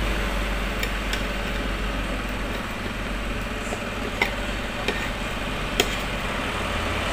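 Spatula stirring diced fruit salad in a plastic mixing bowl, with a few sharp clicks, the loudest a little after four seconds and near six seconds in, over a steady background hum.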